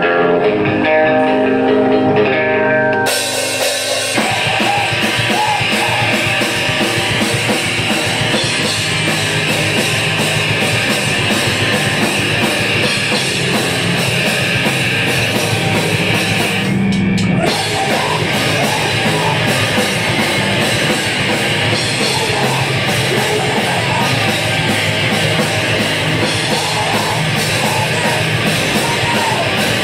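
A screamo/crust hardcore band playing live: electric guitar ringing alone, then drums and the full band crash in about three seconds in and play fast and loud. There is a brief break about seventeen seconds in before it carries on.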